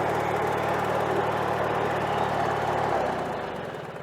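Lawn mower engine running steadily after being jump-started from a DeWALT power-tool battery. About three seconds in it cuts out and winds down.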